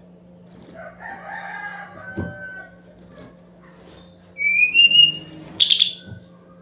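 Caged sikatan rimba dada coklat (SRDC) flycatcher singing: soft twittering notes in the first couple of seconds with a single knock partway, then about four seconds in a loud, high phrase of a rising whistle followed by quick trilled notes. A steady low hum runs underneath.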